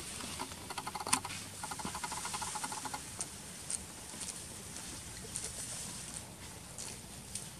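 Rustling and scuffing in dry leaf litter as macaques move about on the ground, with two stretches of rapid, fast-pulsed chattering in the first three seconds.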